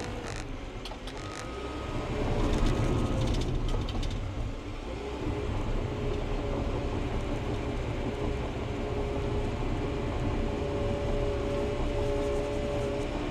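Bulldozer's diesel engine running steadily under load with a held whine, with clanks and knocks of debris being pushed in the first few seconds.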